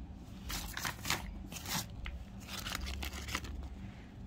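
Plastic bag crinkling and rustling as it is handled, in several short rustles about a second apart, over a low steady hum.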